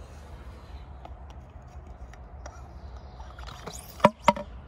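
Airsoft training mortar firing a round: a short rising whistle, then two sharp loud bangs about a quarter of a second apart, a little before the end, over a steady low rumble.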